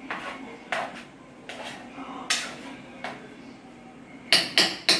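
Pots and utensils clattering on a stovetop: scattered knocks and scrapes, then three loud clangs in quick succession near the end.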